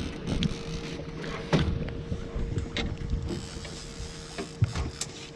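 Fishing boat on the water: a low rumble of wind and water with a steady hum underneath, and a few sharp knocks on the boat.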